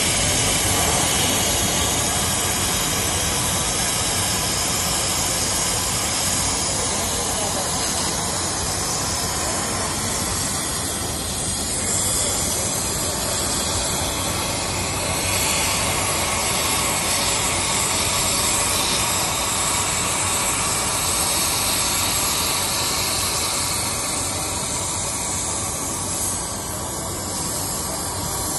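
Plasma cutting torch on a rail-mounted cutting carriage, fed by a CUT100 inverter plasma cutter, hissing steadily as its arc cuts through steel plate.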